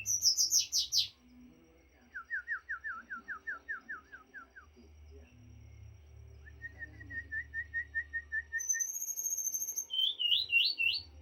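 A small songbird that Indonesian keepers call 'morae mini' singing a varied, chattering song. It opens with fast high notes, then a run of about a dozen quick downslurred whistles, then a rapid trill. After that comes a high sustained trill and, near the end, a few looping notes.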